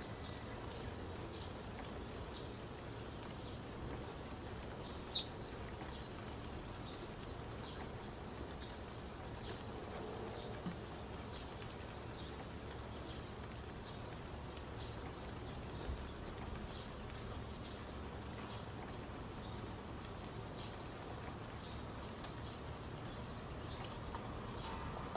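Steady outdoor nature ambience: an even hiss with short, high insect-like chirps repeating about three times every two seconds, and an occasional faint click.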